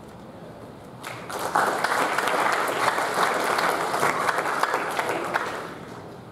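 An audience applauding: many hands clapping together, starting about a second in and dying away near the end.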